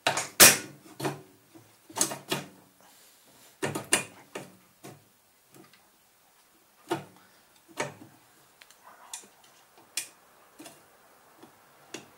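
Irregular knocks and clicks of a part being forced into place by hand on a snow blower's Briggs & Stratton engine, a few sharp strikes in quick succession, loudest about half a second in.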